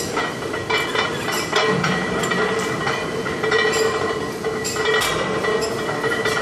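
Metal weight plates and barbells clinking and clanking, many irregular knocks, over a steady high whine.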